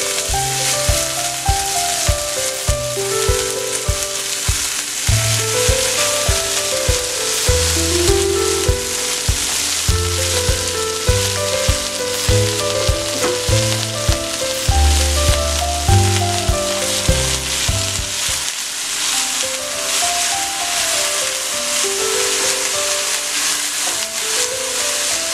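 Chopped amaranth leaves sizzling steadily in hot coconut oil in a stainless steel sauté pan, with background music over it: a stepping melody, and a bass line that drops out about three quarters of the way through.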